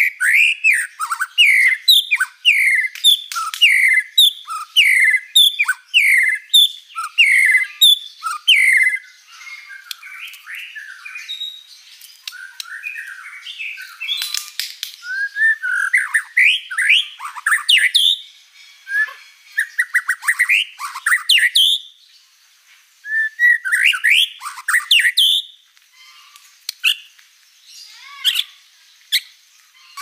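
White-rumped shama singing: a fast run of loud, repeated downward-sweeping whistled notes, about two a second, for the first nine seconds or so. It then moves into quieter, more varied phrases broken by short pauses, with louder bursts of notes in between.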